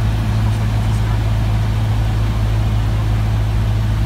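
Cessna 150's four-cylinder Continental O-200 engine and propeller droning steadily inside the cockpit, throttled back to about 1500 rpm.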